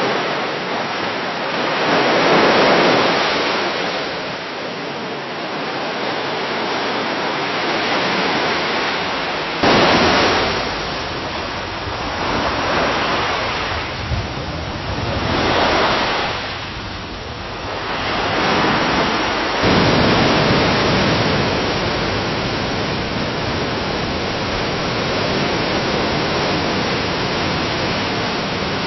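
Gentle waves washing and splashing against a dock, a steady rush of water that swells every few seconds. The sound changes abruptly twice, about a third and two-thirds of the way in, as one recording gives way to the next.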